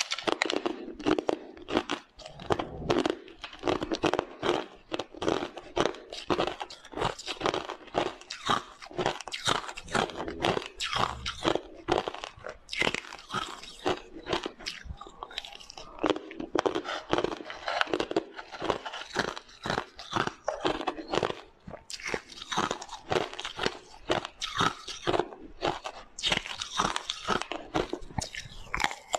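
A person biting and chewing pieces of green-tea (matcha) ice, with rapid, continuous crunching and a few brief pauses between bites.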